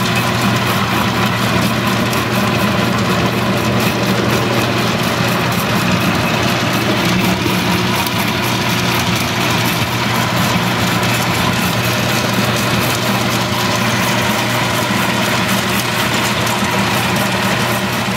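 An açaí pulping machine running with a steady hum, its beater churning açaí fruit with added water to separate the pulp from the seeds.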